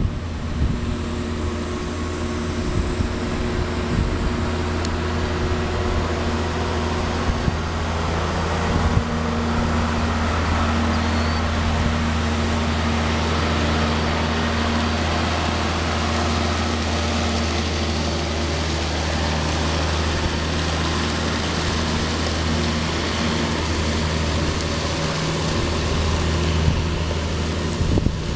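Caterpillar 740 articulated dump truck's diesel engine running steadily as the loaded truck drives by, its deep engine note shifting slightly about nine seconds in.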